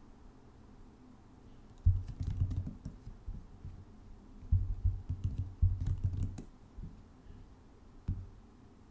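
Keystrokes on a computer keyboard typing out terminal commands. A short run of typing comes about two seconds in, a longer run follows a little past the middle, and there is a single keystroke near the end.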